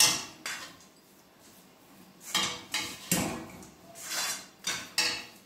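Spatula scraping and knocking against a frying pan while cooked rice is stirred and tossed. There is one stroke at the start, a short lull, then a run of strokes from a little over two seconds in.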